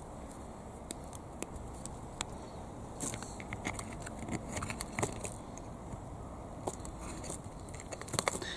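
Scattered light clicks and small scrapes of a short metal tube being pushed firmly into a plastic toy tractor wheel hub by hand, over a low steady background rumble.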